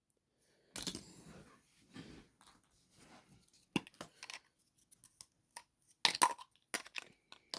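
A surprise egg being opened by hand: its wrapper tearing and rustling, and its plastic capsule clicking, in short scattered bursts.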